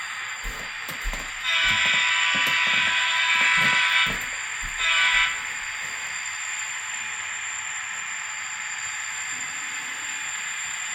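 Model locomotive's sound-decoder horn through a small speaker: a long blast of about two and a half seconds, then a short one, with a few clicks before and a steady hiss after.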